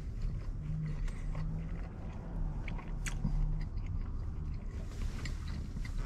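A person chewing a mouthful of pretzel-bun bacon cheeseburger close to the microphone: wet mouth clicks and smacks, with low closed-mouth hums in between.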